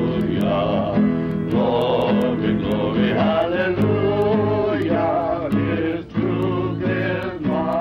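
Music with voices singing held notes in phrases over steady low accompanying tones.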